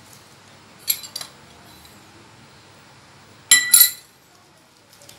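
Spoon clinking against a ceramic bowl while stirring a thick gram-flour batter: a few light clinks about a second in, then a louder quick run of clinks at about three and a half seconds.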